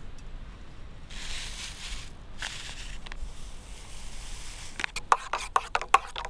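Coffee being stirred in a metal camp mug: quick, even clinks of the stirrer against the mug's wall, about five a second, starting about five seconds in. A brief soft hiss and a couple of light clicks come earlier.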